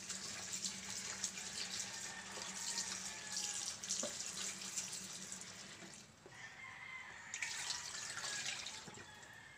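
Kitchen tap running into a plastic basin while sweet potato leaves are rinsed by hand, water splashing over the leaves. The splashing drops off about six seconds in and picks up again a second or so later.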